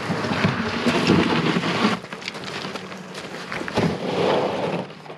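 Wooden boat hull grinding and scraping over shore gravel as it is pushed by hand towards the water, loudest for about the first two seconds, then quieter, with a second louder push around four seconds in.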